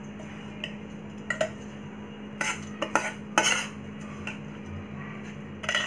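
A spoon clinking and scraping against a stainless-steel mixer-grinder jar as soaked barnyard millet is spooned into it, with a few sharp knocks scattered through, the loudest about three and a half seconds in.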